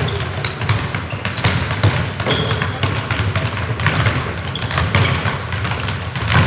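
Many footballs being dribbled, kicked and bounced on a sports-hall floor at once: a dense, irregular patter of thuds with no pause.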